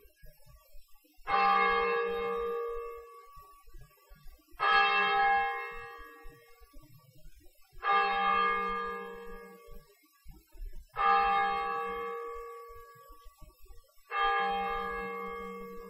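A church bell tolling in slow single strokes, five in all about three seconds apart, each ringing out and fading before the next: the bell ringing that calls the village to mass.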